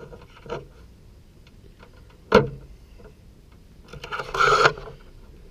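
Handling noises: one sharp knock about two seconds in, then a brief rustling scrape about four seconds in.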